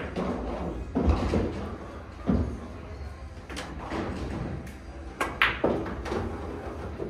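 A pool shot about five seconds in: two sharp clicks close together, the cue tip hitting the cue ball and then ball striking ball. Around it are other knocks and a murmur of voices in the room, one knock about a second in as loud as the shot.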